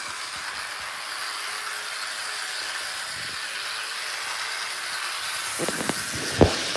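Athearn Blue Box GP60 HO-scale model locomotive running along sectional track, its small electric motor and gears whirring steadily. A few clicks come near the end, with one sharp click the loudest.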